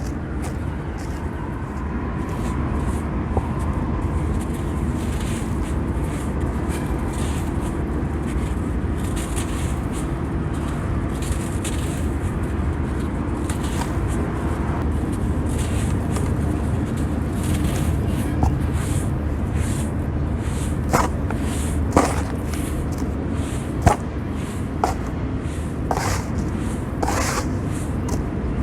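Damp sand being crumbled and crushed by hand, a steady run of small gritty crackles with a few sharper snaps in the second half. A low steady rumble runs underneath.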